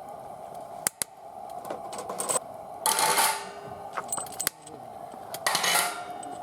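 Metal pieces clinking and scraping against each other, with a couple of sharp clicks about a second in and two louder grating bursts around the middle and near the end.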